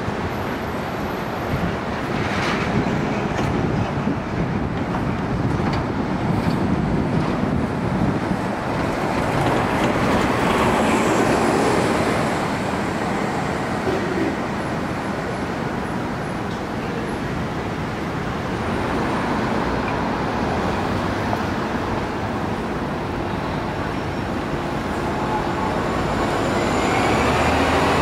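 City street traffic: transit buses and cars passing, swelling about ten seconds in and again as a bus passes close near the end.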